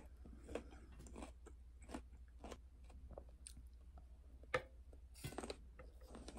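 Faint close-up chewing and biting of firm, underripe Sinbi peach slices, with short crisp crunches and one sharp click about four and a half seconds in.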